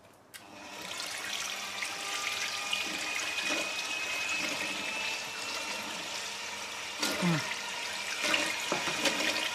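Electric hand mixer running, its beaters whisking a thin, watery mix of pineapple juice, rum and sugar in a glass jug: a steady whirr with a faint motor whine, starting up just after the beginning.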